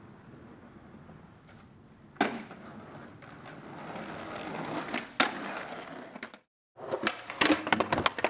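A skateboard drops off a roof onto a steep concrete bank with a sharp smack about two seconds in, then its wheels roll down the rough pavement, with another sharp clack about five seconds in. After a brief dropout, a quick run of skateboard clacks and impacts follows.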